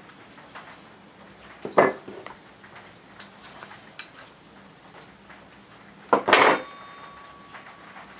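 Metal kitchen utensils handled on a wooden table: a hamburger patty press knocked down about two seconds in, a few light clicks, then a metal spatula clattering down near the end with a short ringing tone after it.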